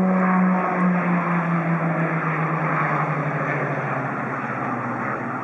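Piaggio P180 Avanti's twin Pratt & Whitney PT6A turboprops with pusher propellers, rolling out on the runway after landing. A loud propeller drone over a rushing engine noise, the drone falling steadily in pitch and fading slightly near the end.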